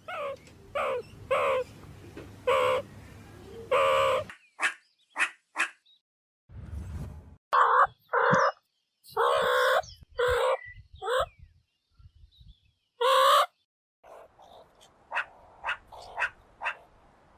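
Meerkat calls: a series of short pitched calls in uneven runs, some faint and thin, with a louder cluster in the middle.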